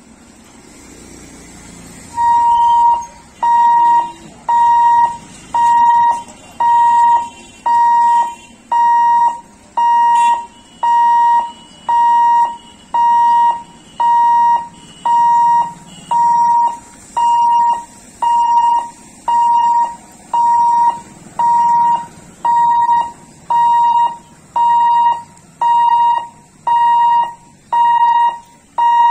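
Level-crossing warning hooter starts about two seconds in and beeps steadily about once a second, each beep a single high tone. It warns road users that the boom barriers are moving.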